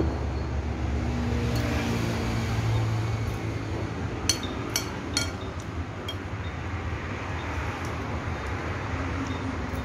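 A few sharp clinks of a metal spoon and fork against a plate, about four to six seconds in, over a steady low rumble of traffic that eases after about three seconds.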